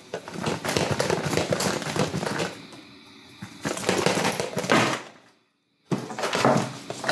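Plastic Nerf blaster being pulled off and snapped back onto magnetic holster mounts on a nylon chest rig: rapid clacks, knocks and fabric rustling. The sound cuts out completely for about half a second near five seconds in.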